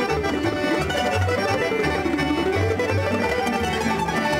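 Tamburica band playing a lively folk tune: bas-prim tamburicas and a kontra plucked and strummed over a double bass, with an accordion.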